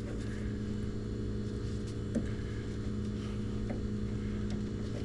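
Refrigerator compressor running with a steady low hum, with a few faint clicks.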